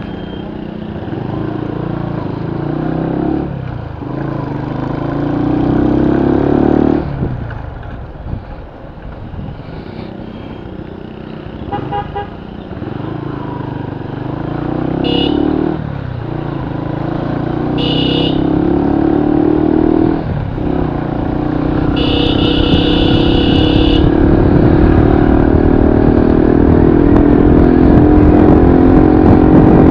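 Cruiser motorcycle engine heard from the rider's seat on the move. Its revs climb and drop back several times as it shifts up, then rise steadily through the last ten seconds. A horn honks briefly twice, then once for about two seconds.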